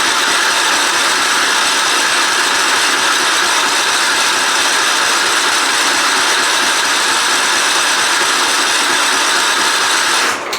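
Starter motor of a John Deere lawn tractor cranking its engine steadily without it catching, then cutting off suddenly near the end. The engine will not fire, which the owner puts down to an empty fuel tank.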